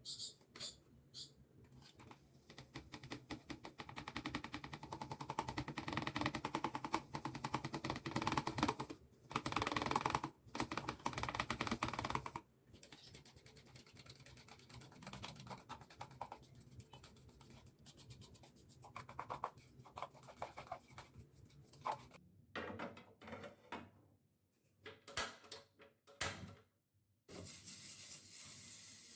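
Rapid light tapping and clicking, dense for about ten seconds, then scattered knocks and handling sounds broken by short silences, ending in a steady hiss.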